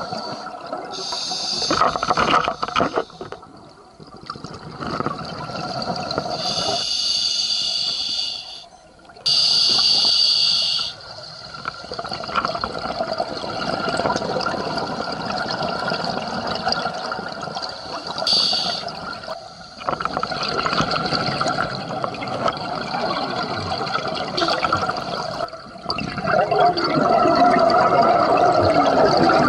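Scuba regulator breathing underwater: several hissing inhalations alternate with long, gurgling runs of exhaled bubbles.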